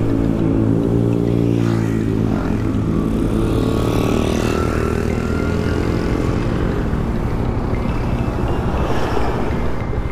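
Motorcycle engine running while riding, its pitch shifting as the speed changes, with rushing noise over it.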